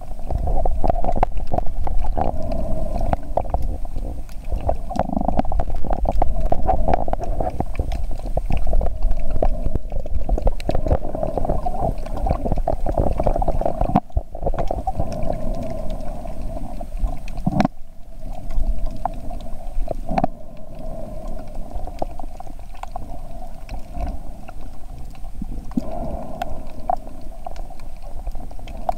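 Underwater ambient noise heard through a submerged camera's microphone: a muffled, steady rumble with a constant hum and scattered faint clicks, briefly cutting out three times.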